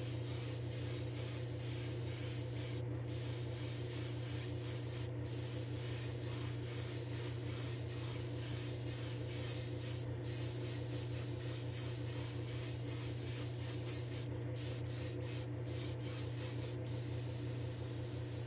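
Airbrush spraying paint onto a small diecast car body: a steady hiss that breaks off briefly a few times as the trigger is let up. A steady low hum runs underneath.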